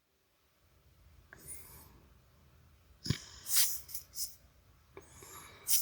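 Trading cards being handled: short sliding and brushing sounds as cards are moved, with a light tap or click about three seconds in.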